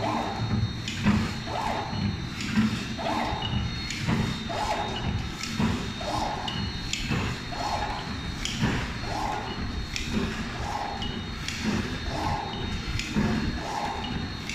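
Back-side-sealing sugar stick packing machine running, its sealing and cutting cycle repeating a little faster than once a second with a knock at each stroke, over a steady high whine.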